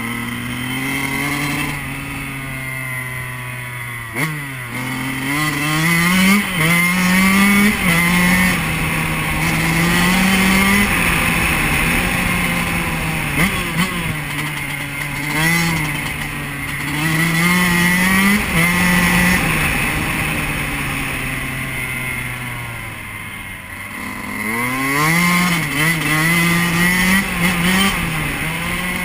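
2008 Yamaha YZ125's two-stroke single-cylinder engine pulling the bike along, its pitch steady at first, then climbing and dropping again and again with the throttle and gear changes. It sinks for a few seconds about two-thirds through and picks up again near the end.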